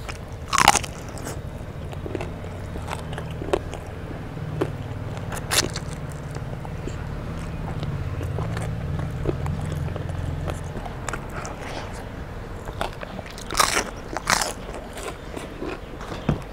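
Close-miked chewing and biting of crunchy fried fish, with sharp crackling crunches about a second in and twice more near the end.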